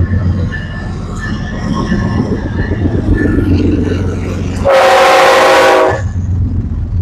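BNSF freight train locomotives rumbling through a road crossing while the crossing bell dings about twice a second. About four and a half seconds in, the locomotive horn gives one short, very loud blast lasting just over a second.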